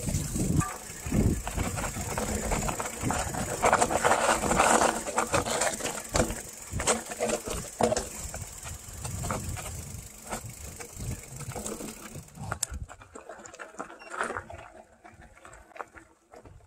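Mountain bike rolling fast down a dirt singletrack: tyres running over the rough trail with many knocks and rattles from bumps. It gets much quieter about three-quarters of the way through.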